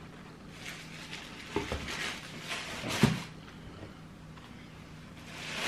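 Rustling and handling noises of a sneaker being turned over in the hands, with a couple of light knocks about one and a half and three seconds in.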